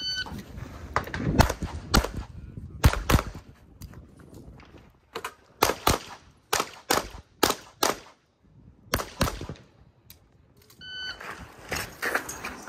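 A shot timer's start beep, then a Tanfoglio pistol fired in quick strings of shots, several a second with short pauses between strings. A second start beep comes about eleven seconds in, followed by more shots.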